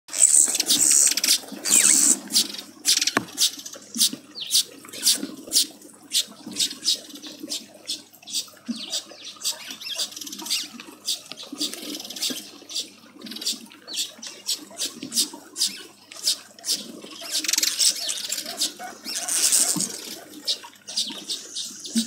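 Many small birds chattering and chirping together: quick sharp chirps several a second, with louder bouts of high, buzzy chatter at the start and again about three-quarters of the way through.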